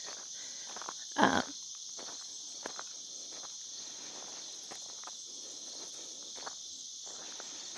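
Steady high-pitched chorus of crickets and other insects in a rural field, with soft footsteps and one brief louder sound about a second in.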